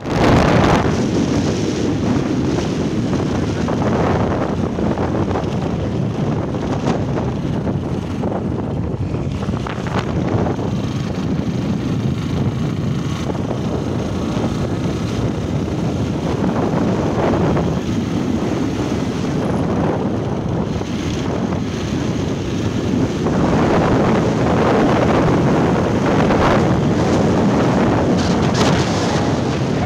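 Wind blowing hard across a phone's microphone on a moving motorcycle: loud, steady, low rumbling noise.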